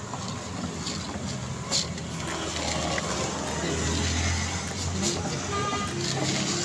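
Street traffic: cars and motorcycles driving past on a city road, their engine and tyre rumble swelling a little past the middle.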